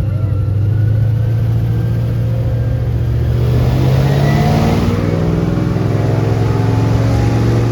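Airboat engine running loud and steady, revving up about three seconds in and easing back a couple of seconds later.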